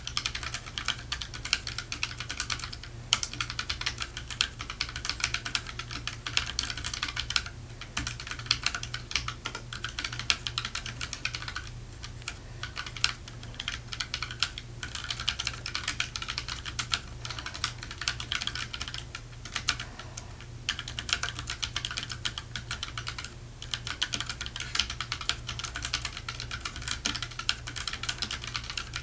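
Fast typing on a Keychron K3 low-profile mechanical keyboard with Gateron Brown switches: a dense, continuous patter of key clicks, broken by short pauses every few seconds.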